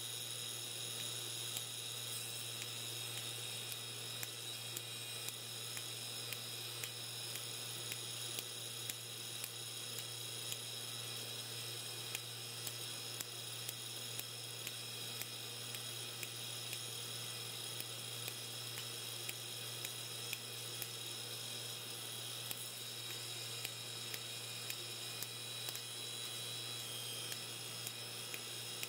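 Electrical discharge machining of a razor blade with a drill bit as the electrode: a steady hum and high whine from the running setup, with small sharp clicks about every second as sparks jump the gap and erode the steel.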